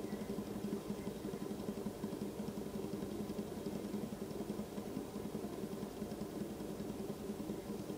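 Fidget spinner lying flat on a wooden tabletop and spinning on its bearing, a steady whirring hum with a fast flutter.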